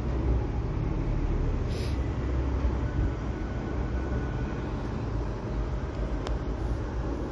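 Steady low rumbling background noise, with a brief hiss about two seconds in.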